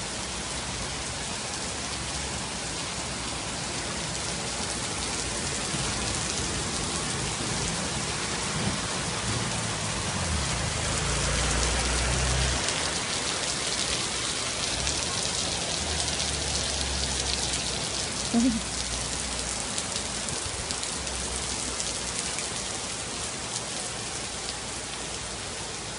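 Heavy tropical rain pouring steadily onto a flooded street and the surfaces around it. A low rumble swells through the middle, and one short, sharp, rising sound stands out about 18 seconds in.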